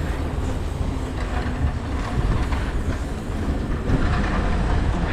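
Wind buffeting a GoPro's microphone during a snowstorm: a continuous, uneven low rumble with a rushing hiss over it.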